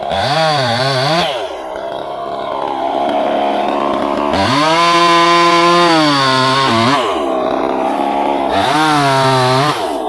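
Chainsaw cutting wood, revved to full throttle three times, with the longest burst in the middle. The pitch wavers under load and drops back lower between bursts.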